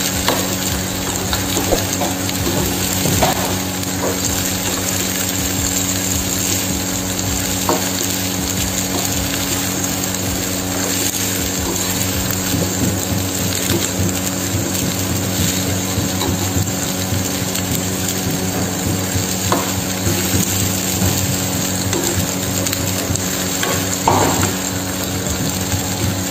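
Chicken and cubed vegetables sizzling in a frying pan while being stirred with a metal spoon, which scrapes and knocks against the pan now and then.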